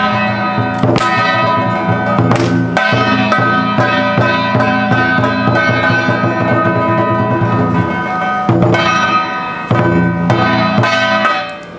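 Traditional temple ritual music: a held melody over drum and cymbal-like strikes. It fades out just before the end.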